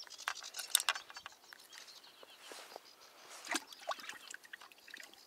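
Close-up clicks and rustles of hands handling a small crucian carp and unhooking it, with a quick cluster of sharp clicks in the first second and a few more about three and a half seconds in.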